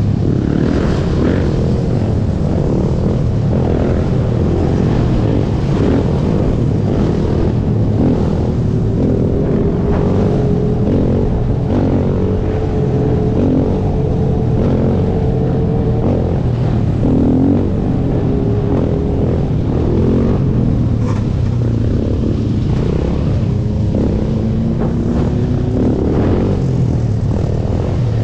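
Sport ATV engine running under way, its pitch rising and falling with the throttle, over a steady rush of wind and road noise. Other dirt bikes and quads in the group ride run alongside.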